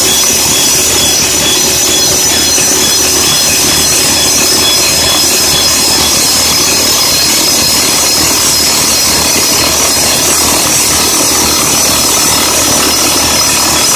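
Roxar hydraulic drifter (top-hammer rock drill) on an excavator-mounted drill rig, hammering steadily into hard granite: a loud, unbroken rapid hammering.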